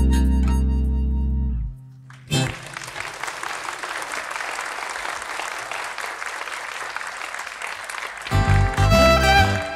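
A band's last held chord fades out, then a concert audience applauds steadily for about six seconds. Near the end the band's acoustic instruments strike up the next song.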